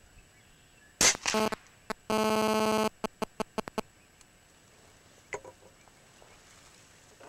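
A single shot from a Remington Vantage 1200 .177 break-barrel spring-piston air rifle about a second in, a sharp crack with a short ringing after it. It is followed by a steady buzzing tone lasting just under a second, then five or six sharp clicks.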